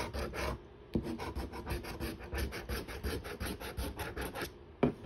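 A scratch-off lottery ticket being scratched in quick back-and-forth strokes, about five a second, with a brief pause just under a second in and another near the end.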